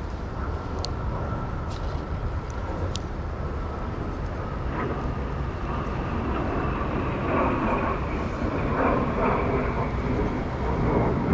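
Steady rumble of passing road traffic, growing louder over the last few seconds, with a few sharp clicks.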